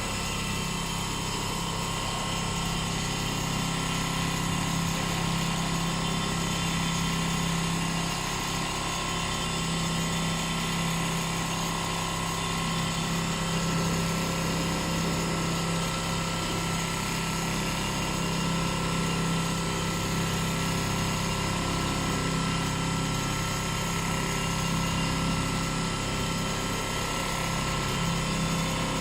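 Large Richpeace CNC quilting machine running and stitching, a steady, unbroken mechanical hum with a few constant tones.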